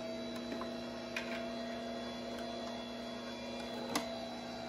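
Caynel vertical electric juicer's motor running with a steady hum as it presses oranges, with a single knock about four seconds in as a hand comes down on the top of its feed chute.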